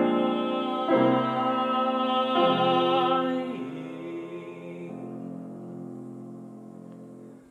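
Classical-style music with piano and a sung voice, changing chords a couple of times and then fading over the last few seconds.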